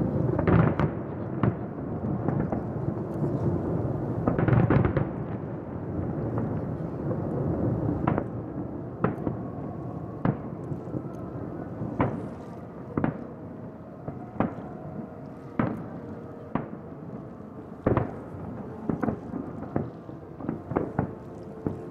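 Aerial fireworks shells bursting in a dense barrage of booms and crackle for the first several seconds. After that come separate sharp bangs, about one a second.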